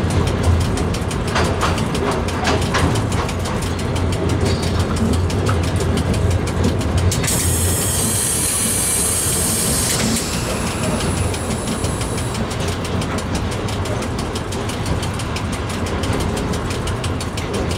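Electric train running through a railway tunnel: a steady loud rumble and hum with the rapid clatter of wheels on rails. About seven seconds in, a high hiss rises over it for a few seconds and then fades away.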